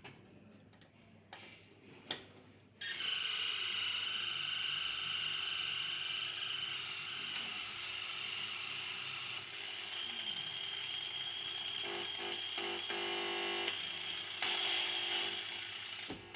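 A couple of clicks, then about three seconds in the TV's speakers, driven by a newly fitted audio amplifier board, start a loud, steady buzzing noise that stops just before the end. The noise is interference that the repairer puts down to the nearby transformer.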